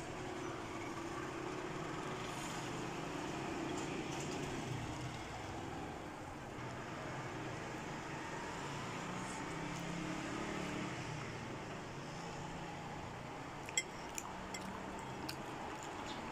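Faint steady background rumble with quiet sounds of noodles being eaten from a fork and chewed, and a few small clicks near the end.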